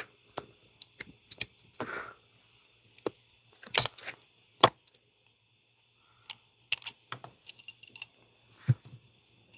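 Scattered small clicks and taps of a Matco BFR128LF flex-head ratchet being handled and taken apart to reseat its selector detent ball, which has fallen out. The sharpest tap comes a little before four seconds in.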